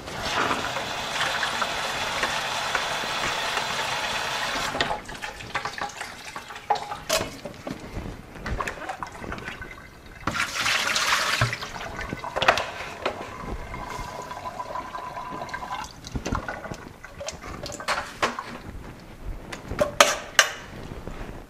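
Water from a hose sprayer rushing into an empty plastic pail for about five seconds as the pail is rinsed out. Then knocks and clatter of the pail being handled, and a second short rush of water about ten seconds in as the rinse water is poured out into the sink.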